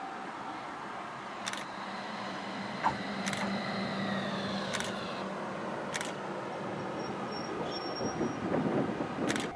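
Yellow low-floor tram pulling in to the platform and slowing: a steady electric motor hum with a high whine that falls in pitch as it brakes, several sharp clicks from the wheels, and a rougher rumble near the end as it draws up.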